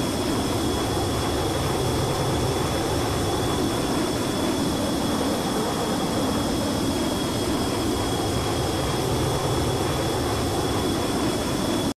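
Steady jet aircraft noise: an even roar with a thin high whine over it, cutting off suddenly at the end.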